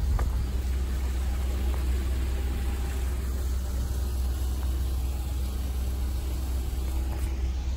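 A steady low rumble with a hiss spread above it, holding at an even level throughout.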